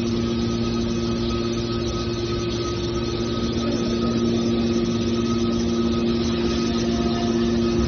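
Scrap metal baler press running steadily: a constant mechanical hum with a couple of steady tones in it, typical of the baler's hydraulic power unit.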